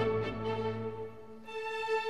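Instrumental background music with long held notes, a little quieter in the middle.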